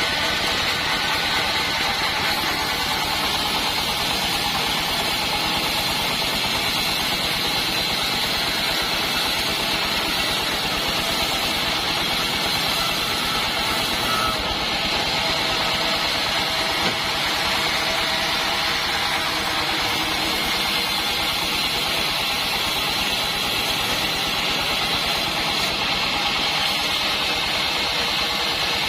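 Band sawmill running steadily: a constant machine noise from its engine and moving saw band, with a steady high-pitched whine over it and no change in level.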